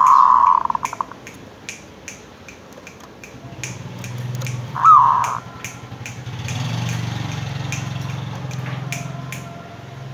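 Zebra dove cooing: a trilled coo in the first second and a short falling coo about five seconds in. Sharp clicks tick along about twice a second, and a low droning hum builds from about the middle.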